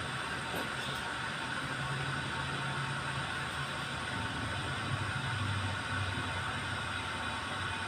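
Water heating in an electric water heater: a steady hiss with an uneven low rumble as the element brings the water toward the boil.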